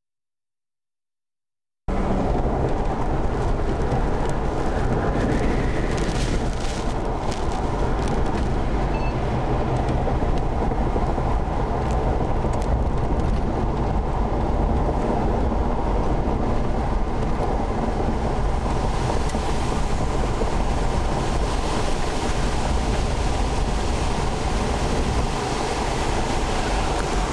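Tornado wind and rain: a steady, loud, deep rumble that starts suddenly about two seconds in. A hiss of rain and wind grows stronger in the last third.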